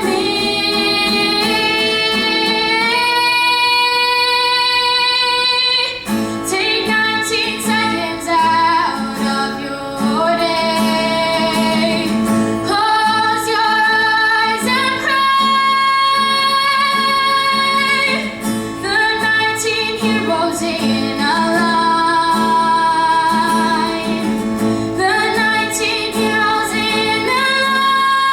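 A young female voice singing an original song to acoustic guitar accompaniment, holding long notes between shorter phrases.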